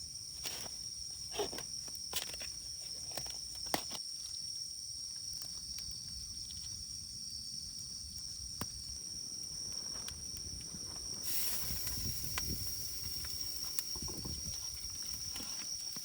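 Insects trill steadily at a high pitch, with scattered sharp crackles and snaps from a wood campfire. A steady high hiss joins about eleven seconds in.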